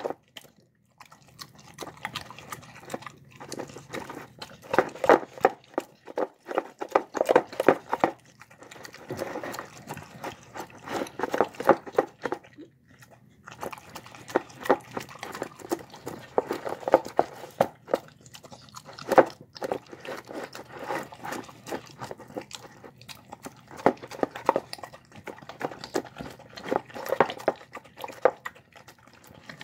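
Dog eating boiled rice and egg from a bowl: quick runs of wet chewing and smacking, broken by short pauses.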